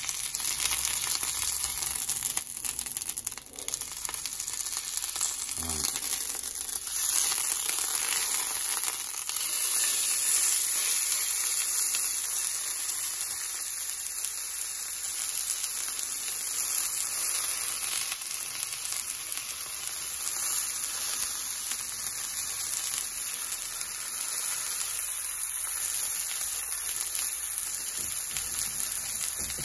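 Beef steak frying in hot oil in a cast iron pan, a steady sizzling hiss that grows louder about seven seconds in.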